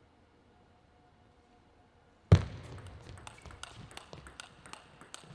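Table tennis rally: near quiet at first, then a sudden loud thump a little over two seconds in as play starts, followed by a quick run of sharp clicks of the celluloid ball off the bats and the table.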